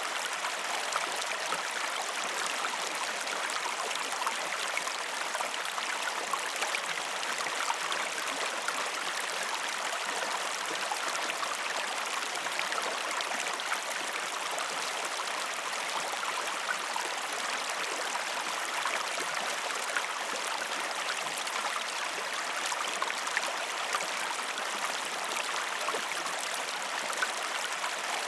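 Waterfall splashing steadily: an even, unbroken rush of falling water with fine splashing detail.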